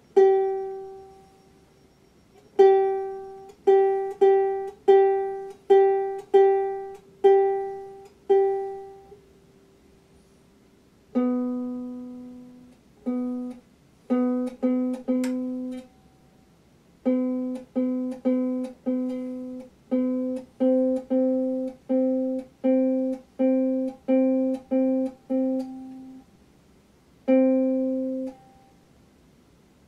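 A ukulele being tuned: single strings plucked one at a time. A higher note is plucked about ten times, then after a short pause a lower string is plucked over and over, each note ringing briefly.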